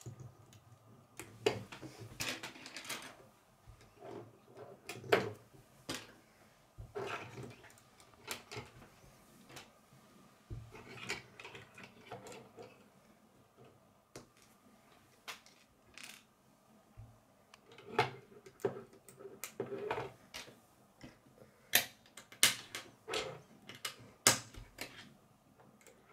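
K'nex plastic rods and connectors clicking together as they are snapped into place by hand, in irregular clusters of sharp clicks with short pauses between.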